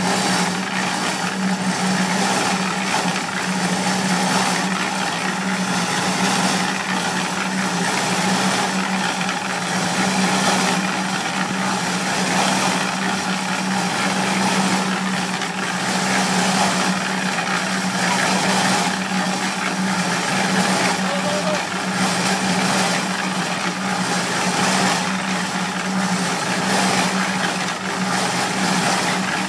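Small tilting-drum mortar mixer running: a steady motor hum with the mix churning in the turning drum, a swish repeating a little more than once a second.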